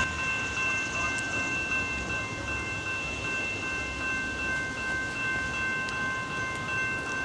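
Railroad grade-crossing warning bell ringing steadily with a high, continuous ring over the low rumble of an approaching train.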